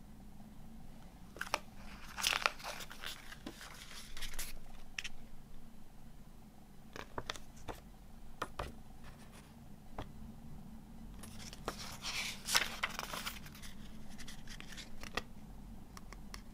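Pages of a glossy CD booklet being turned and handled: two bursts of paper rustling and crinkling, about two seconds in and again around eleven seconds in, with scattered light paper clicks between.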